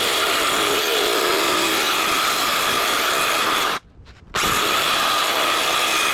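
Cordless power saw cutting a wood board, running steadily, stopping for about half a second near the middle and starting again. Its battery is low, which may be why it cuts poorly.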